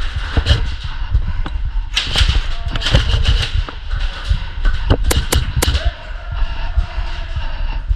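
Airsoft game action: constant thumping and shuffling of a player moving with gear, with scattered clicks. A quick run of three sharp cracks of airsoft shots or BB hits comes about five seconds in.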